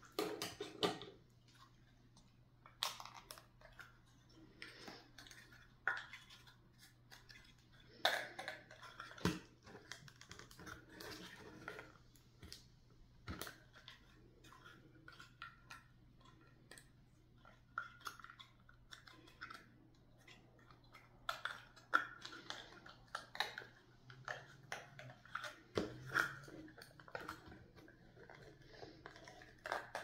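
Scattered small clicks, taps and rustles of craft materials (paper and small wooden pieces) being handled on a tabletop, over a faint steady low hum.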